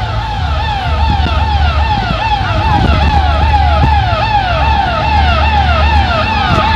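Electronic vehicle siren in a fast yelp, about three falling sweeps a second. It is likely on a Satpol PP (civil service police) patrol vehicle. A deep low hum pulses on and off underneath.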